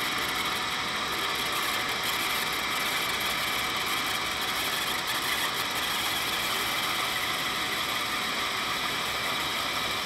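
Metal lathe running steadily while a 4 mm twist drill in the tailstock chuck bores into the end of a spinning washing machine motor shaft, which is soft to cut.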